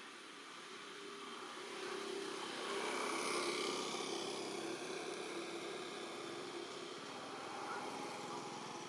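A motor vehicle's engine passing by, growing louder to a peak about three seconds in and then slowly fading.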